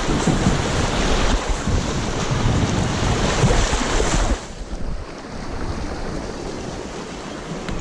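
Wind buffeting an outdoor action-camera microphone: a gusty rushing noise that drops off sharply about four seconds in and carries on more quietly.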